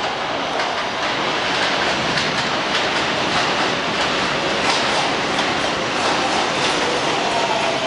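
An R142A subway train running into an elevated station, a steady rumble with its wheels clicking over the rail joints. Near the end a faint whining tone comes in, falling slightly in pitch, as the train slows to stop.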